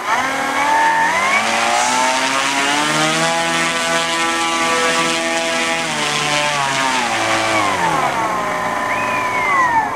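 Turnigy 170 kV electric motor on a large model airplane spinning its propeller on the ground. The whine climbs in pitch over about three seconds, holds at full power, then winds down between about six and eight seconds in. A short rev up and back down follows near the end.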